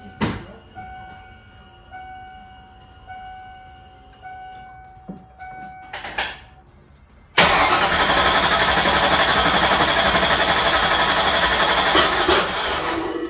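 Key on: a repeating electronic warning chime over the thin whine of the electric fuel pump priming for about five seconds. About seven seconds in, the starter cranks the 5.0-liter small-block Ford V8 steadily for about six seconds and stops suddenly. The engine does not settle into a run on its freshly installed Holley Terminator X EFI.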